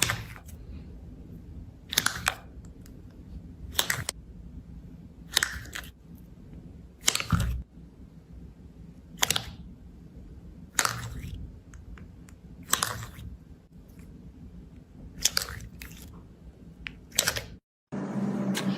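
Slime being pressed by hand, giving short sharp crackling pops about every two seconds. Near the end it cuts abruptly to a steady low hum.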